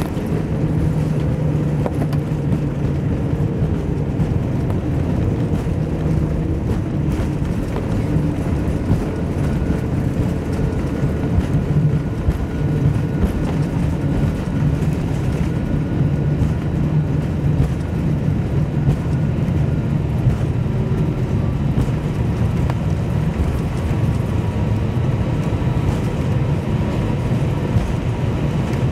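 Steady cabin noise of a jet airliner taxiing after landing: a low, even rumble from the engines at idle and the wheels rolling, with a faint steady whine above it.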